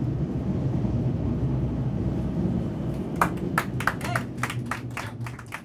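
Inside a moving metro car: the train runs with a steady low rumble, and about three seconds in, scattered hand-clapping from the passengers breaks out.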